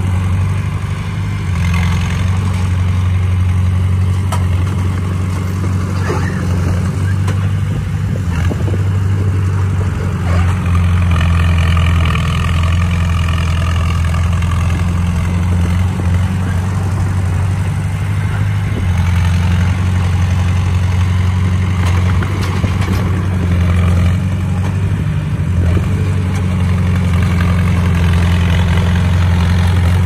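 Komatsu D20A bulldozer's diesel engine running steadily and loud, with a wavering higher whine for several seconds midway.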